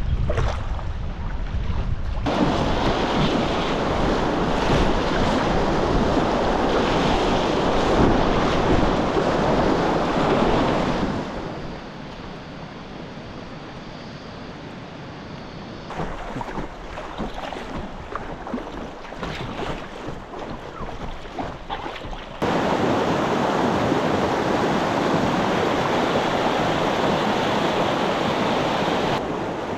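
River water rushing over rocks, in stretches of loud whitewater rapids, about 2 to 11 seconds in and again from about 22 seconds to near the end. Between them the water is quieter, with small splashes. Wind buffets the microphone at the start.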